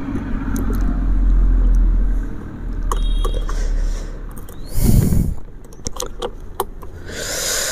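A low rumble for the first two seconds or so, then a heavy thump about five seconds in. Scattered sharp clicks and light rattles follow, from hands on the stopped scooter's handlebar and dashboard.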